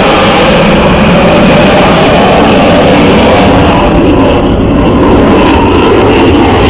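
A military display aircraft flying low overhead: loud, steady engine noise.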